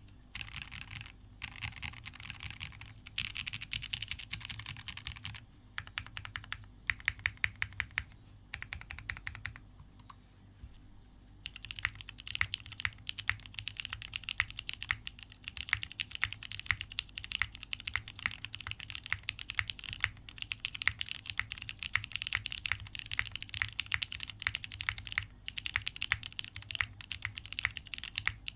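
Typing on a Spectacle60 mechanical keyboard with a polycarbonate plate, Cherry MX2A switches and GMK keycaps. The keystrokes come in short runs with brief pauses, then turn into fast, continuous typing from about halfway.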